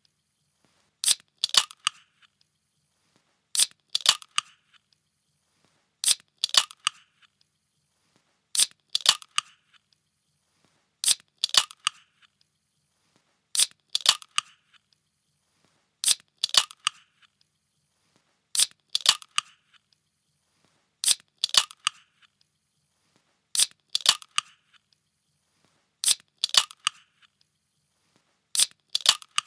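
A metal can being opened, repeated about every two and a half seconds: each time a quick cluster of sharp snaps with a short rasp after them, with near silence between.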